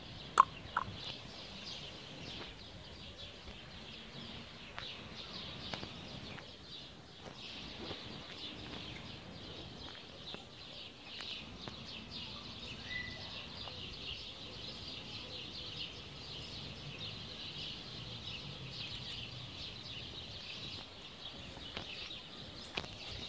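Outdoor ambience of many small birds chirping steadily in the trees, high-pitched, with two short sharp calls near the start.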